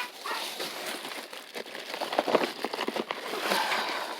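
Crinkling and rustling of a paper piñata and wrapped candy as hands dig inside it, a dense run of small crackles that is loudest a little after two seconds in.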